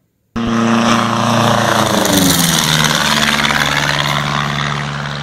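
Propeller airplane with a piston engine flying past. It starts suddenly, drops in pitch as it passes, then fades away.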